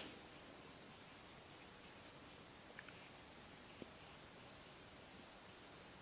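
Marker pen writing on a whiteboard: a faint run of brief scratchy strokes as words are written.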